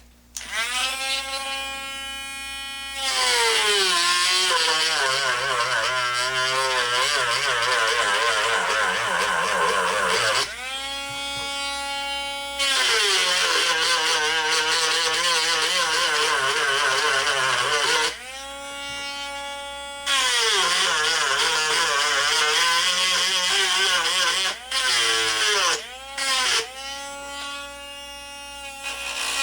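Dremel rotary tool whining at high speed, grinding wooden dowel plugs down flush in a gun stock. Three times its pitch drops and it turns louder and harsher as the bit is pressed into the wood, rising back to a higher free-running whine each time it is lifted off.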